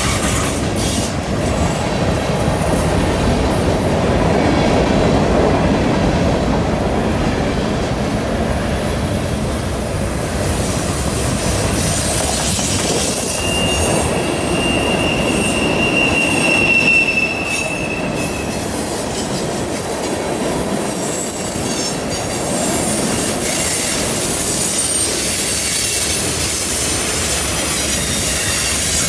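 Freight cars of a CN train rolling past on a curve: a steady rumble of steel wheels on rail, with thin high-pitched wheel squeal on the curve, clearest between about 13 and 18 seconds in.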